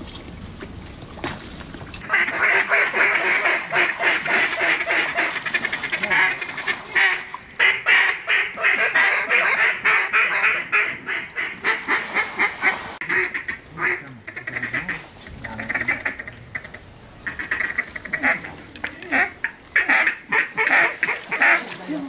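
Duck quacking and fast chattering, a dense run of rapid quacks starting about two seconds in and going on with short breaks.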